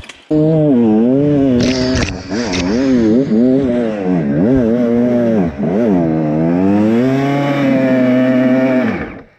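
Enduro dirt bike engine being ridden hard, its revs rising and falling again and again as the throttle is worked. There are a few sharp knocks about two seconds in.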